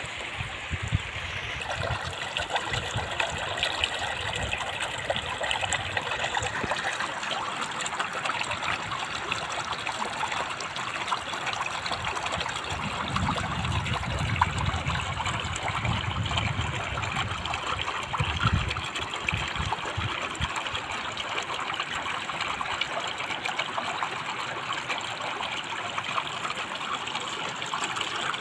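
Shallow river water running and splashing over rock ledges, a steady trickling rush. A low rumble comes and goes in the middle.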